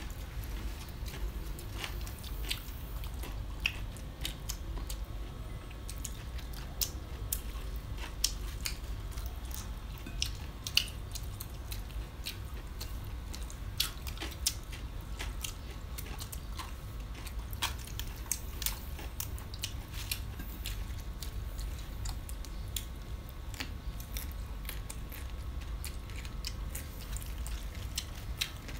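Close-up eating sounds: people chewing and biting into leafy wraps and raw vegetables, with many scattered short crunches and wet mouth clicks over a steady low hum.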